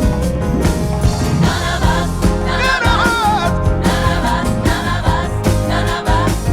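Soul-pop song playing from a vinyl record: full band with a steady beat and bass, with sung or ad-libbed vocal lines over it.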